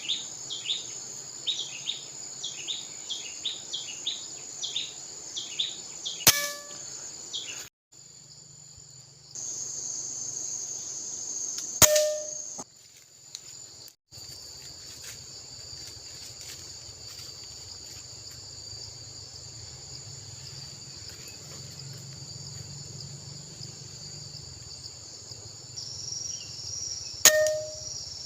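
Three sharp PX120 air-rifle shots, about six seconds in, about twelve seconds in and near the end, each with a brief metallic ring. Under them, insects drone steadily and high, and a bird chirps rapidly in the first few seconds.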